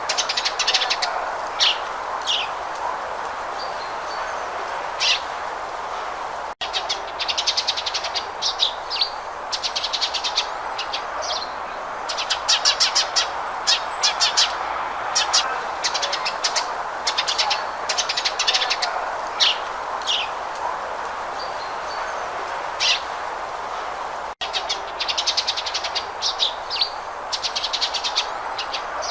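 House sparrow chirping: fast runs of repeated high chirps with single chirps in between, over a steady background hiss.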